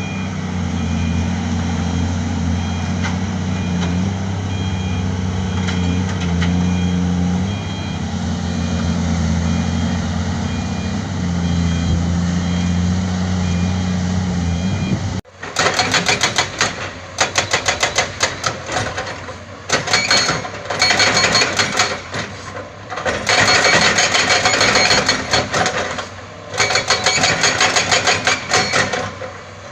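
Heavy diesel earthmoving machinery running steadily, with a reversing alarm beeping about once a second. About halfway through, the sound cuts abruptly to rapid, loud clattering knocks in bursts with short pauses.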